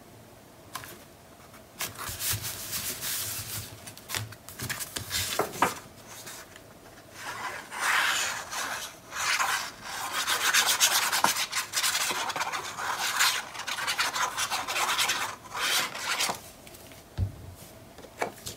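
Sheets of patterned paper and cardstock rubbing and rustling in irregular bursts as they are handled, slid and pressed down, with a few small taps.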